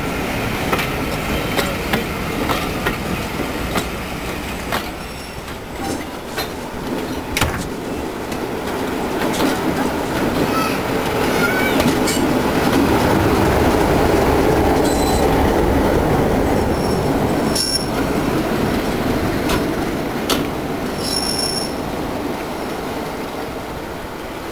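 Diesel-hauled passenger train in motion at close range: a steady rumble with repeated sharp clicks and clanks from the wheels and coaches. It grows loudest about halfway through, and short high-pitched wheel squeals come several times in the second half.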